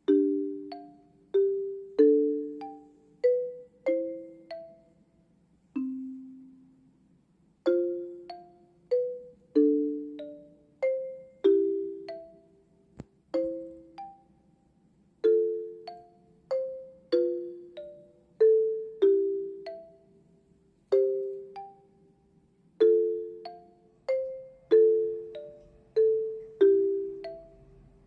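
Background music: a gentle melody of struck, bell-like notes, each ringing and then fading, about one or two a second, over a lower accompaniment of paired notes.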